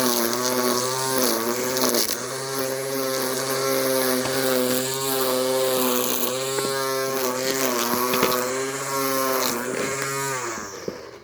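A motor running steadily at a constant pitch, dipping briefly twice near the start and fading out near the end.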